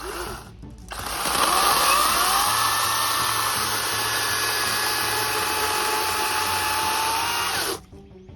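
EGO cordless electric chainsaw: a brief trigger burst, then the motor spins up and runs at a steady pitch for about seven seconds, cutting through the log at full power on its 5 Ah battery, and stops abruptly near the end.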